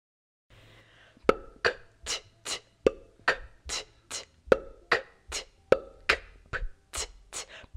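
Beatboxed percussion pattern: a steady run of short vocal drum hits, about two and a half a second, with a faint low hum underneath.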